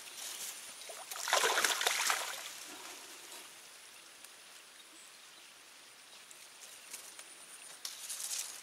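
Water splashing and trickling in a brief burst about a second in, with a shorter, weaker burst near the end and a faint water-side hush between.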